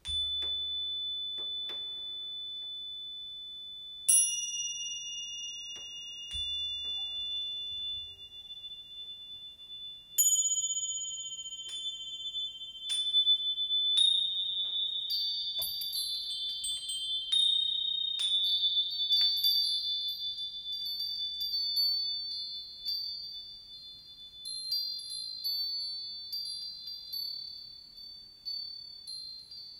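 Japanese wind chimes (fūrin) ringing: clear, high bell tones struck one at a time and left to ring and fade. Sparse at first, then from about halfway in many chimes ring in a dense, overlapping tinkle.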